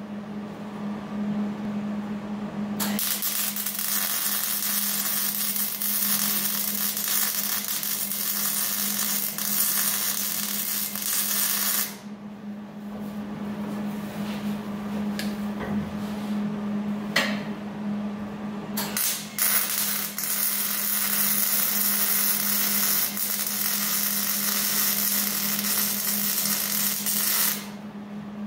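Arc welding crackling in two long runs, from about three seconds in to about twelve, and again from about nineteen seconds until shortly before the end. This is the transmission crossmember bracket being welded to the frame rails. A steady low hum runs underneath.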